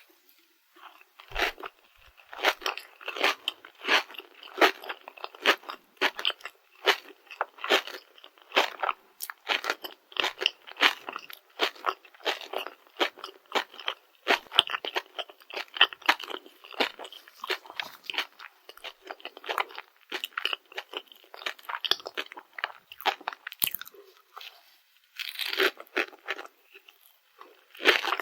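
Close-miked crunching and chewing of a Dubai-chocolate chapssaltteok, a chocolate-coated glutinous rice cake filled with pistachio spread and crispy kadaif. Rapid crisp crunches come one after another, with a short pause near the end.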